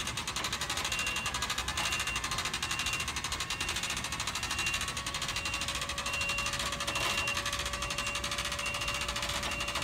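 Hand-cranked winch of a Sumner 2124 material lift clicking rapidly and steadily as its handle is turned, raising a load up the telescoping mast.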